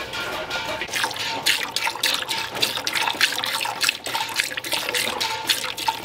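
Cow's colostrum squirting from the teats into a stainless steel pail as the cow is hand-milked, a quick, steady run of squirts that grows stronger after about a second. The milk is being stripped from a tight, swollen udder just after calving to ease it.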